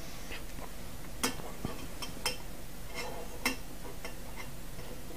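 About five light clicks and taps as a digital probe thermometer is handled and set into a small camp cookpot, over a steady low hiss.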